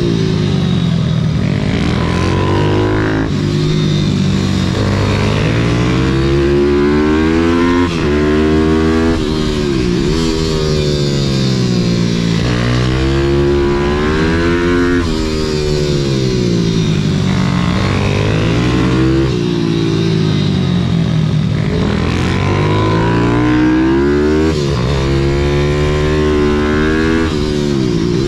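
Onboard sound of a YCF SM 190 Daytona pit-bike supermotard's single-cylinder four-stroke engine under hard riding, the revs climbing and falling again and again through the corners, with sudden drops in pitch several times as the throttle closes or a gear changes. A steady rush of wind noise lies under it.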